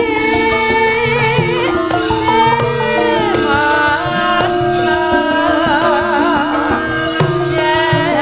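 A female Javanese sinden sings a slow song with a wide, wavering vibrato, held notes and sliding ornaments. A gamelan ensemble with a hand drum accompanies her.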